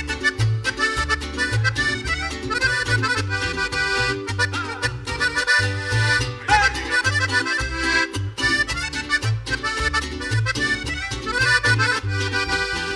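Live band playing an instrumental cumbia intro: a bass line stepping between notes under steady, even percussion, with a melody carried on top.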